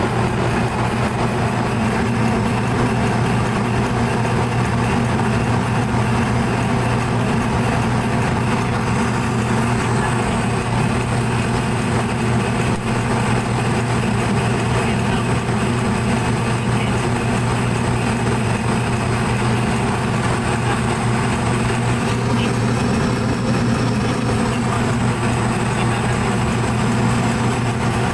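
Ship's machinery running steadily: a constant loud drone with a strong low hum and a thin high whine.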